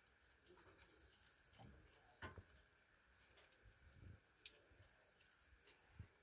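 Near silence, with faint scattered clicks and brief scrapes of a hand tool worked at a disc brake caliper.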